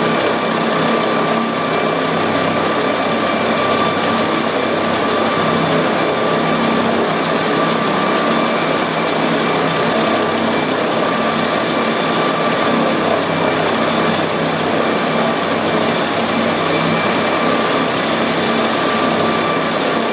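Air-ambulance helicopter running on the ground with its rotor turning before liftoff: a steady turbine whine over constant rotor and engine noise.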